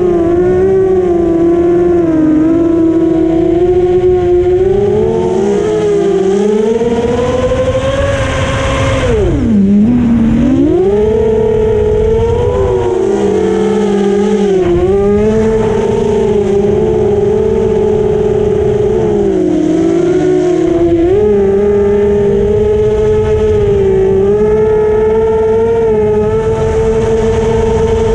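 FPV racing quadcopter's four 2205 brushless motors and 5-inch propellers whining, heard through the onboard camera, with air rushing past. The pitch wavers with throttle, drops sharply about nine seconds in as the throttle comes off, then climbs straight back up.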